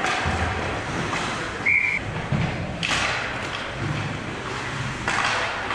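Ice hockey rink noise: skate blades scraping the ice and dull knocks of sticks and puck. A short single blast of a referee's whistle comes about two seconds in, the signal that play is stopped.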